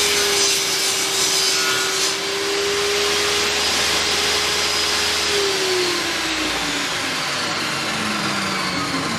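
MAC AFRIC 250 mm table saw running at speed with a steady whine and a harsher hiss for the first two seconds. About five and a half seconds in it is switched off and winds down, its whine falling in pitch.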